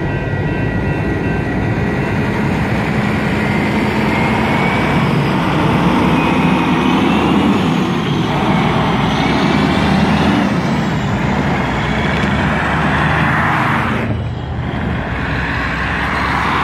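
Road traffic passing close by over a railroad crossing: a semi truck and cars drive past, the loudest passage coming from about eight to fourteen seconds in, with another vehicle coming through near the end. The crossing signal's bell rings for the first couple of seconds, then stops.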